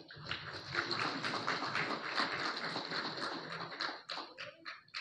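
Audience applauding, thinning out to a few scattered claps near the end.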